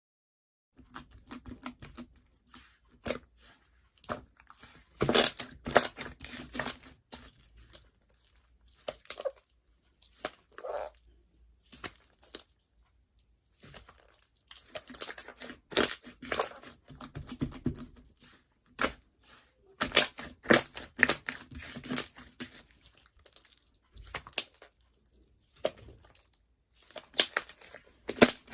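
Slime being squeezed and pressed by hand, giving irregular runs of crackling, popping clicks with short pauses between handfuls.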